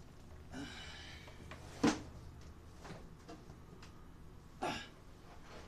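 Handling noise as the phone camera rubs against clothing: a soft fabric rustle, then two sharp knocks about three seconds apart, with a few faint ticks between.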